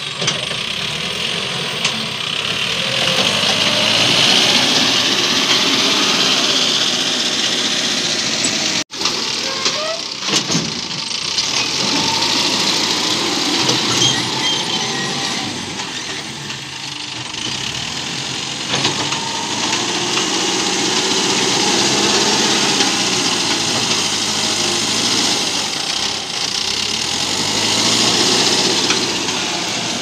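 Backhoe loader's diesel engine running under load as the front bucket pushes and scoops soil, engine speed rising and falling. The sound cuts out abruptly for an instant a little under nine seconds in.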